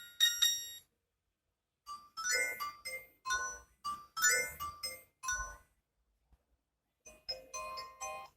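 New Nokia 3310 (2017) phone playing ringtone previews through its small speaker, one after another as the list is scrolled. A bell-like tone ends just under a second in, then a quick run of short digital melody notes plays, then after a pause another tone begins near the end. These are digital tones rather than the old iconic Nokia ringtones.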